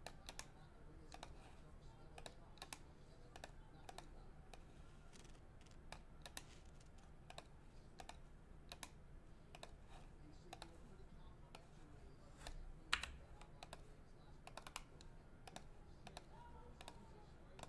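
Faint computer keyboard typing and clicking, in irregular keystrokes, with one louder click about 13 seconds in, over a low steady hum.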